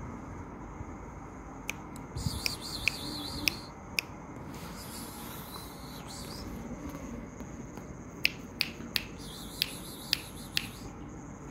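A series of sharp clicks in two quick clusters, from a kitten's paws and claws striking a woven plastic floor mat as it pounces, with a faint high warbling chirp between the clicks over a steady low hum.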